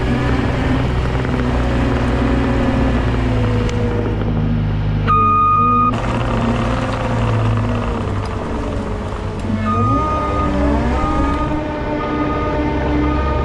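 Cat 299 compact track loader's diesel engine running steadily while it rolls freshly laid driveway gravel with a compactor. The engine speeds up a little before ten seconds in. A short high steady tone sounds about five seconds in, and several short high tones follow near the end.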